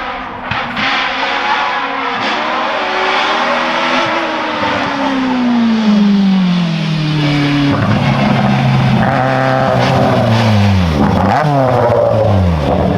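Hill-climb race car engine: its note falls steadily over a few seconds and then holds. Near the end it dips sharply and climbs again as the engine is revved. A few short sharp cracks come in the first seconds.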